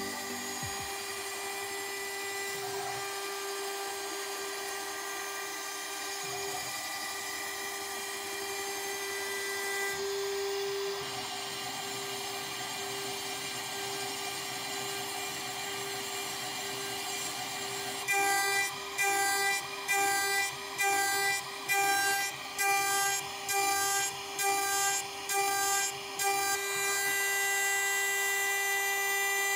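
CNC router spindle spinning a 6 mm two-flute wood end mill at 24,000 rpm, cutting a pocket in beech: a steady high whine with overtones over the noise of the cut. About two-thirds of the way in the cut grows louder in a quick run of short pulses, about one and a half a second, then holds steady and louder.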